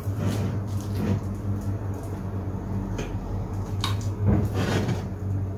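A spoon spreading and smoothing mashed potato over minced meat in a baking dish: soft scraping and squishing, with a few light scrapes of the spoon near the end, over a steady low hum.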